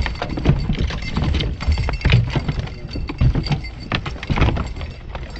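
Irregular knocks, clatters and thumps on a plastic kayak as a large sand bass thrashes on board, tangled in an A-rig lure.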